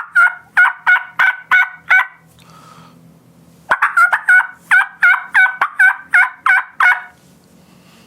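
Turkey mouth call (diaphragm call) run through the hen 'hiccup' sequence of cuts and yelps run quickly together, at about four sharp notes a second. It plays twice: a run ending about two seconds in, then a second run of about a dozen notes after a short pause.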